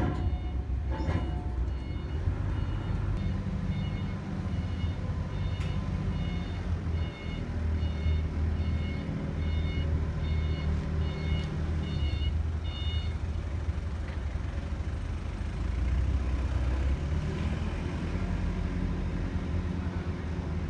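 Sumitomo ST500M truck crane's diesel engine running steadily under load, with an electronic warning beeper sounding in short repeated beeps, about two a second, that stop about two-thirds of the way through.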